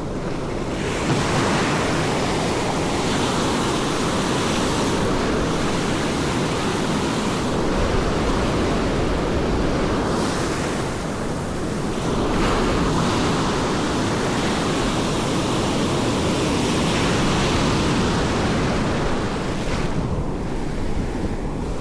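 Ocean surf breaking and washing in, swelling and easing every few seconds, with wind buffeting the microphone.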